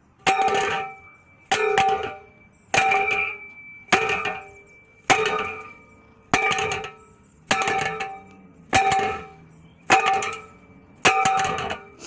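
Stuck steel basketball-hoop pole sections banged end-down on the ground again and again to jar the joint apart: a ringing metal clang about every 1.2 seconds, ten times.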